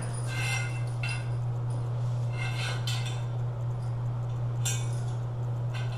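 Stainless steel grab bar and its loose flange covers clinking and ringing as it is handled, in a few short bursts about a second apart and once more near the end. A steady low hum runs underneath.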